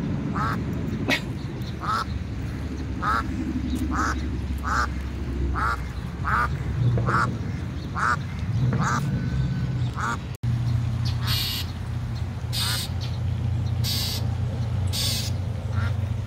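A duck quacking over and over, a bit more than once a second, stopping about nine seconds in. A few short harsh high sounds follow near the end.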